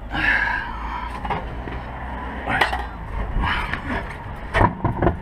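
Metal clinks and knocks of tools and a car road wheel being handled and lifted toward the hub, about six sharp knocks spread out, with a short scrape at the start.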